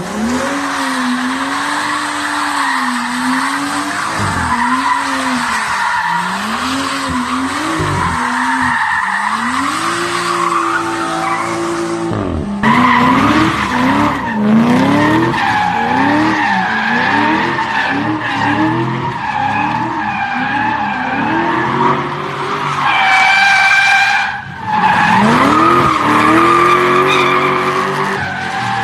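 BMW car engine revving up and down again and again while the tyres squeal and screech in a drift. The sound cuts abruptly to another clip of the same about twelve and twenty-four seconds in.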